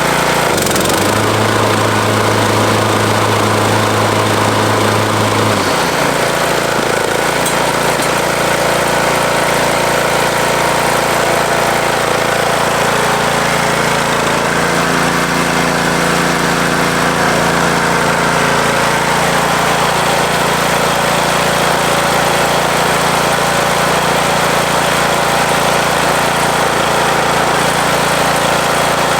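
Craftsman T110 riding mower's 17.5-horsepower, 500cc Briggs & Stratton engine running steadily. Its pitch shifts about six seconds in, as the engine speed changes.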